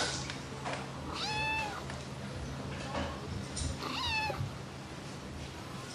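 Domestic cat meowing twice: a drawn-out meow about a second in and a shorter meow that falls in pitch about four seconds in.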